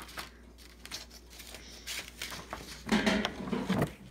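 Sheets of paper rustling and crinkling as they are handled and turned over, with a louder flurry of handling about three seconds in.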